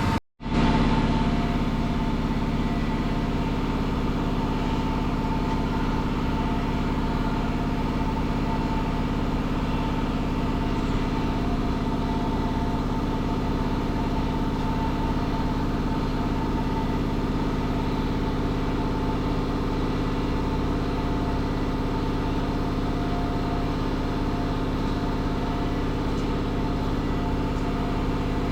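Truck engine running at a steady, unchanging pace under a heavy load of scrap metal, with a continuous drivetrain hum. It follows a brief cut in the sound just after the start.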